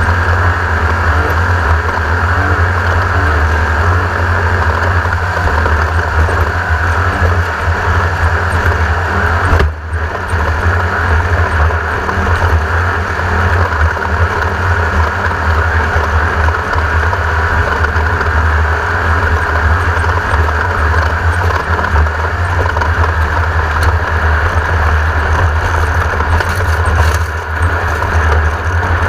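1982 Race-co Class 1600 off-road race car's air-cooled Volkswagen 1600 engine running loud and steady, with one brief dip about ten seconds in.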